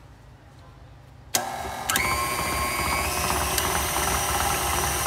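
Electric stand mixer switched on about a second in and turned up in steps, its motor whine rising with each speed change as it beats cream to churn it into butter.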